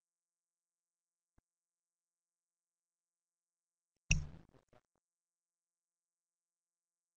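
Near silence, broken about four seconds in by a single short thump that dies away within about half a second.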